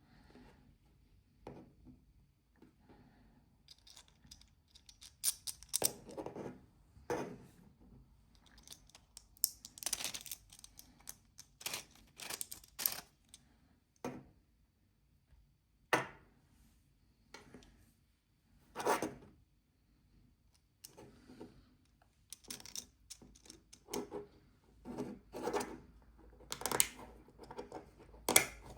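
3D-printed plastic parts being handled and fitted together by hand: irregular clicks, scrapes and rattles, with short quiet gaps between them.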